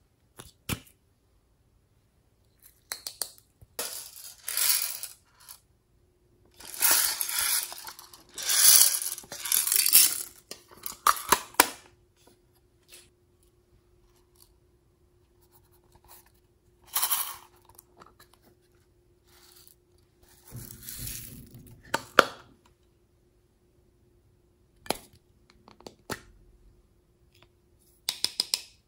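Small plastic toy containers being twisted open and handled: plastic clicks and snaps with spells of scraping and rattling of small contents, coming in irregular bursts with short pauses between.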